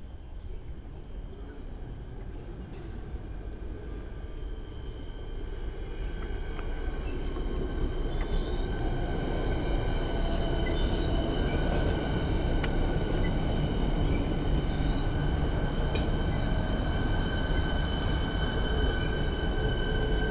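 Metro Trains Melbourne electric suburban train approaching and running past along the platform, growing louder over the first several seconds and then holding steady. A steady high whine rides over the running noise, with occasional sharp clicks from the wheels on the rails.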